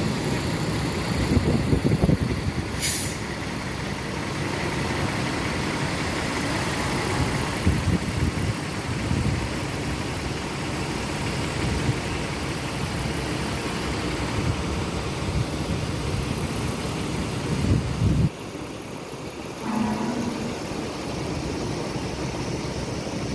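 Diesel engines of large intercity buses running and manoeuvring, a steady low rumble with a brief sharp hiss about three seconds in. The rumble drops abruptly about eighteen seconds in.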